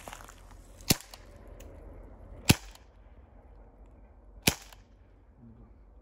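Air pistol firing three sharp shots, about two seconds apart, at a bottle target.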